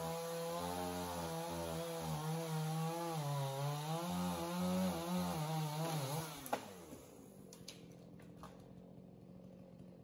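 Two-stroke chainsaw cutting through a fallen log, its engine note wavering as the chain bites into the wood. About six and a half seconds in the revs drop away and it runs much quieter, with a few faint clicks.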